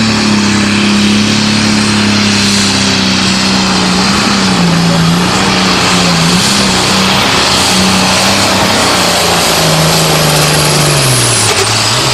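Light limited super stock pulling tractor's turbocharged diesel running flat out under full load as it drags the weight-transfer sled, its pitch wavering slightly as it pulls. Near the end the engine drops off and the pitch falls, with a high whine falling away as the run ends.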